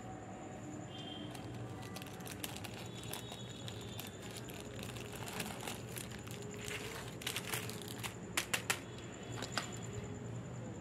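Paper and card rustling and crinkling as journal pages and paper cut-outs are handled, with a cluster of sharp taps and clicks about eight seconds in, over a faint steady hum.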